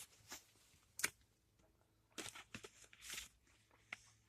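Faint rustling of paper receipts and coupons being handled, with a sharp click about a second in.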